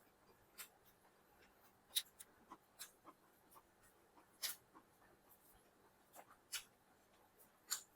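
Quiet mouth sounds of eating chicken biryani: chewing and lip smacks, short sharp clicks at uneven intervals, a few of them louder.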